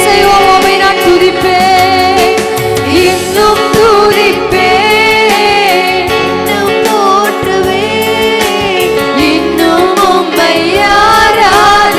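Tamil Christian worship song: sung melody with held, wavering notes over steady instrumental accompaniment.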